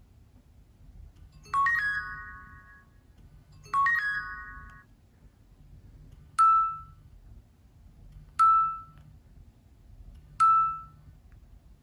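Nokia C7-00 ringtone or alert tone playing in repeated strokes. First come two chime chords, each several notes struck together and ringing out, about two seconds apart. Then come three single high pings at two-second intervals, each dying away quickly.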